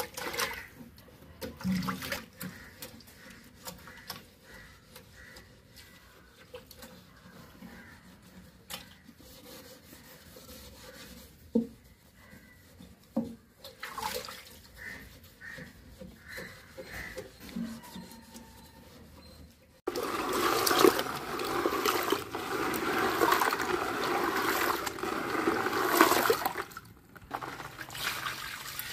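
Hands rubbing and scrubbing a glass fish tank, with scattered small knocks and squeaks. About two-thirds of the way in, a sudden loud rush of water pouring and splashing starts, lasts several seconds, and then drops away.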